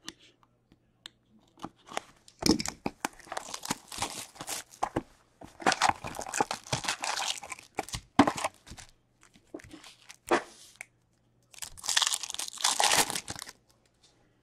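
A sealed box of hockey cards and its packs being torn open by hand: repeated bursts of tearing and crinkling wrapper, with clicks and rustles from handling between them.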